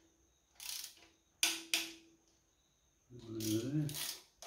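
Ratchet wrench clicking in several short bursts, each a stroke of the handle, as the sump bolts on a Holden 253 V8 are run down.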